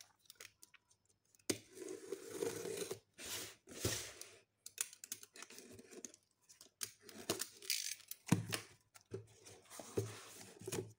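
Utility knife slitting the packing tape and cardboard of a shipping box in several separate scraping strokes, then the tape tearing as the box flaps are pulled open near the end.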